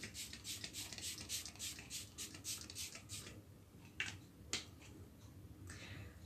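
Pump bottle of makeup setting spray spritzed many times in quick succession, about five sprays a second, for the first three seconds; then two sharp clicks about four seconds in.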